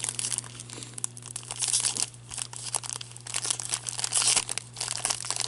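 Foil wrapper of a trading card pack being torn and crinkled open by gloved hands, in irregular crackling bursts. A steady low hum runs underneath.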